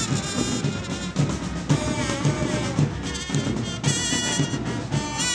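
Brass band music, with horns playing a melody over a steady bass drum beat of about two beats a second.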